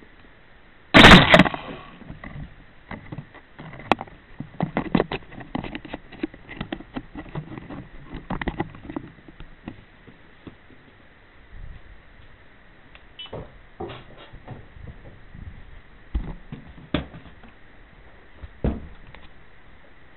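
Handling noise on the camera: a loud bump about a second in, then scattered knocks, taps and clicks, with a few isolated knocks later on. A faint steady high tone runs underneath.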